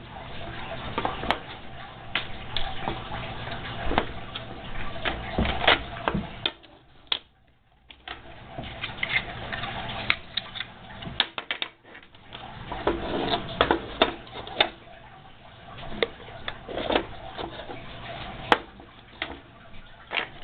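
Plastic parts of a Wodent Wheel exercise wheel being handled and taken apart: irregular clicks and knocks of plastic pieces, with a brief lull partway through.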